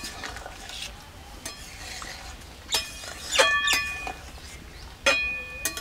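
Metal ladle stirring in an aluminium kadai, scraping and knocking against the pan, with two ringing metallic clanks, one past the middle and one near the end.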